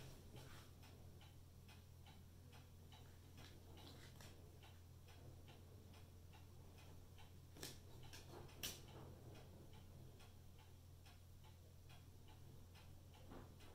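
Faint ticking of a clock, about two ticks a second, over a low steady hum. Two sharper knocks about a second apart near the middle are a knife cutting through kiwifruit onto a plastic cutting board.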